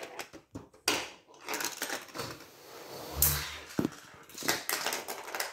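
Marbles running through a Gravitrax plastic marble run: rolling noise on the tracks with repeated sharp clicks and clacks as they hit rails and switches, and a short low thud about three seconds in.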